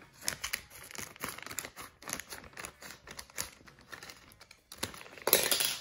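Crinkling plastic packet being cut open with scissors, with small clicks and crackles throughout and a louder burst of rustling about five seconds in.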